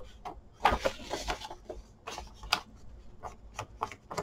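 Paper rustling and shifting, with short scuffing strokes of a foam ink blending tool rubbed along the paper edges to ink them. The strokes come irregularly, several times, the loudest about a second in.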